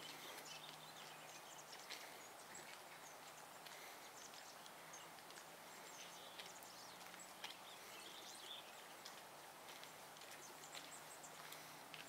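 Near silence: faint outdoor background hiss with a low steady hum, broken by scattered faint, short high chirps and ticks.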